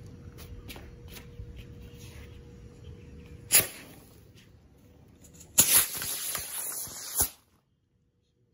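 Diwali firework rocket catching with a short spurt of hiss about three and a half seconds in, then firing with a loud hiss for nearly two seconds before it cuts off. Wind rumbles on the microphone before it lights.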